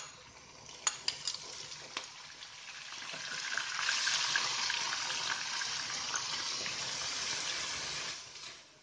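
Chopped onion sizzling as it fries in hot oil with whole spices, stirred with a wooden spatula in a nonstick wok. A few sharp clicks come in the first two seconds. The sizzling grows louder from about three seconds in and dies away near the end.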